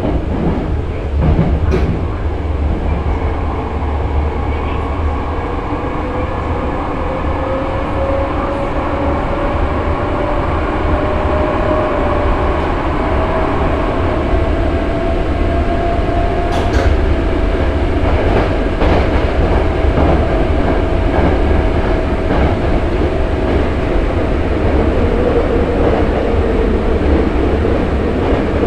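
Nose Electric Railway 5100-series resistance-controlled train running, heard aboard: a whine rises in pitch as the train picks up speed, then holds steady about halfway through over a deep rumble. A few sharp clicks from the track come through.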